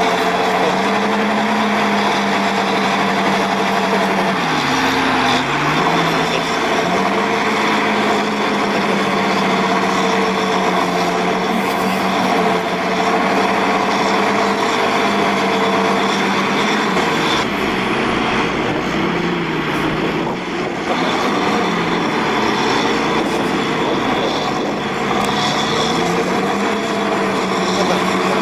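Diesel engines of two John Deere tractors running hard under heavy load, pulling a plough through deep mud. The steady engine drone dips and recovers about five seconds in, with smaller sags later on.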